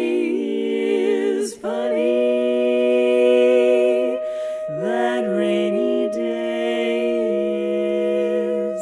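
Four-woman a cappella quartet singing sustained close-harmony chords. From about two seconds in, one voice holds a long steady note while the lower voices move beneath it.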